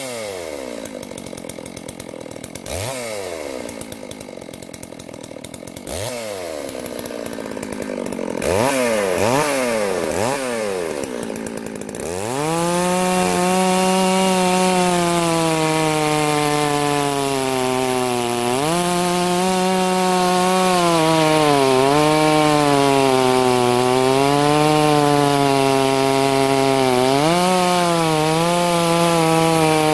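Farmertec Holzfforma G660 two-stroke chainsaw revved in short bursts that fall away, then held at full throttle from about twelve seconds in as its 36-inch bar cuts into a dry hardwood log. The pitch sags twice under the load of the cut and picks back up.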